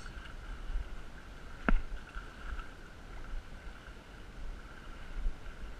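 Handling and water noise at the river's edge as a caught trout is held: a low rumble with a faint steady high tone throughout, and one sharp click about a second and a half in.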